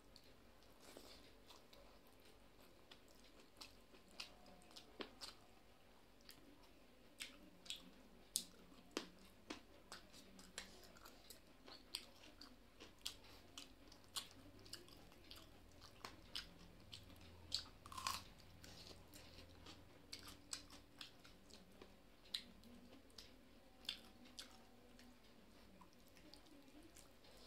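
Close-miked chewing of a mouthful of rice and small fish, with sharp crunchy clicks about every half second to a second, the loudest about a third and two thirds of the way through.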